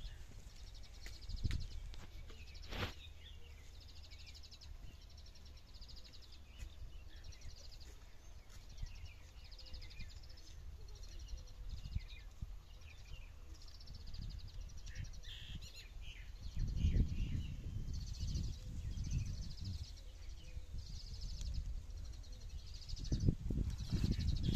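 Cicada calling: high, very rapidly pulsed buzzing in short bursts that come and go. Low rumbling noise rises about two-thirds of the way through and again near the end.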